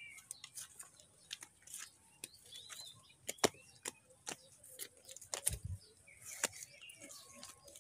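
Footsteps on a dirt path with scattered clicks and rustles, and a few short bird chirps in the background about three seconds in; a low thump about five and a half seconds in.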